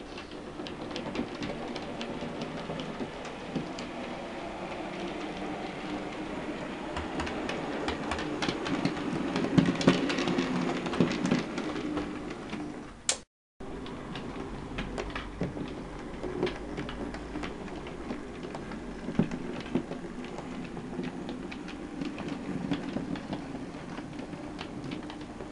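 Hornby K1 OO-gauge model steam locomotive running along the track: a steady electric-motor whirr with quick clicking of the wheels over rail joints and points. It grows louder as the locomotive nears, until about halfway through, where the sound cuts out briefly at an edit and then resumes a little quieter.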